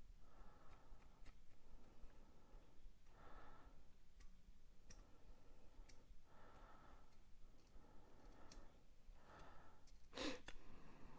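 Quiet close-up handling: soft breaths every couple of seconds and faint small clicks of hands and a tool working on an orchid's base. A sharper click comes about ten seconds in.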